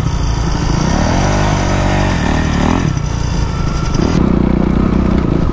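Dirt bike engines running while riding, with the engine pitch rising and then falling back between about one and three seconds in. The sound changes abruptly about four seconds in to a steadier low engine note.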